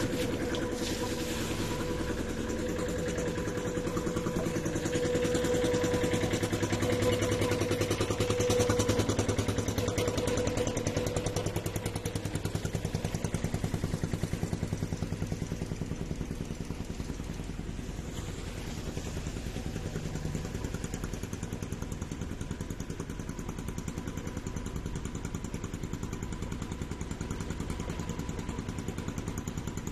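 Boat engine running steadily with the boat under way, a fast even beat. It runs louder for the first ten seconds or so, then settles to a lower, even level.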